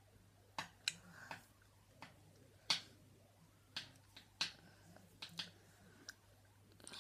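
About a dozen soft, sharp clicks and pats at irregular intervals from fingers working liquid foundation onto the face and hands, with a faint steady hum underneath.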